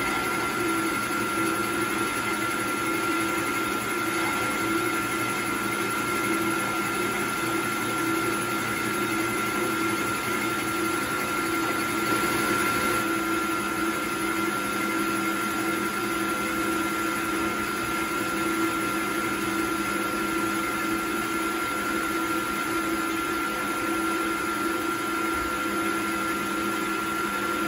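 Milling machine running with a steady motor whine while an end mill is fed slowly into a wheel's lug hole, cutting a flat spot face.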